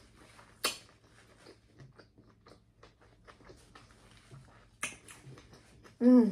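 Close-up mouth sounds of someone chewing a big mouthful of seafood boil: scattered small wet clicks and smacks, with two sharper clicks. Near the end comes a short, louder vocal sound that falls in pitch.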